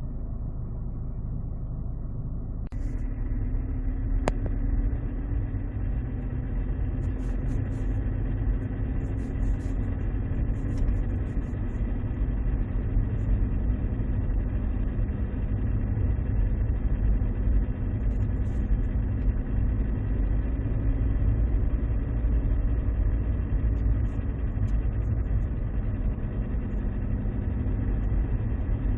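Mercedes-Benz C200 CDI (W203) four-cylinder diesel running, heard inside the cabin: a steady low drone with faint steady tones above it, fuller from about three seconds in. The owner hears an awful noise that seems to come from the 722.6 automatic gearbox's selector area whenever the engine is above 2000 rpm, and is unsure whether it is the gearbox, the torque converter or something else.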